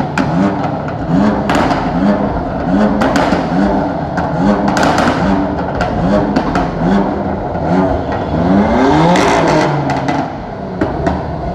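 BMW M car engine revved in quick repeated throttle blips, about two a second, each a short rising rev, with exhaust pops and crackles between them. The blips stop about ten seconds in.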